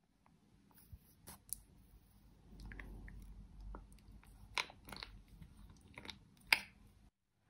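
Plastic scissors snipping through a soft plastic tube of glitter filling, with crinkling of the plastic and several sharp snips, the loudest a little past halfway and about two-thirds of the way in.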